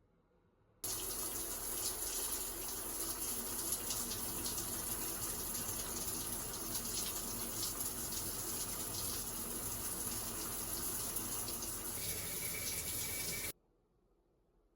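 Water running steadily, starting suddenly about a second in and cutting off abruptly near the end.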